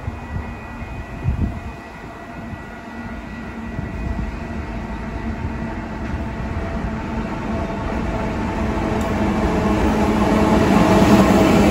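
GL-class diesel freight locomotive approaching: its engine drone grows steadily louder as it draws near.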